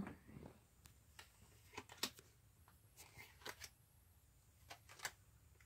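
Near silence with a scattering of faint, sharp clicks and taps, spaced irregularly, from Uno cards being dealt onto a table.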